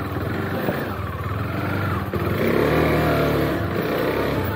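KTM Duke 390's single-cylinder engine pulling at low speed off-road, revving harder and louder about two seconds in.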